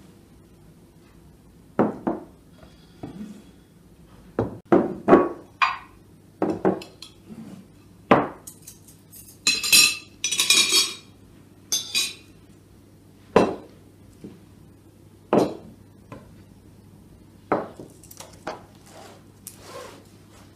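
China plates, glasses and cutlery being set down on a table: a series of separate knocks and clinks, with a quick run of bright ringing clinks about ten seconds in.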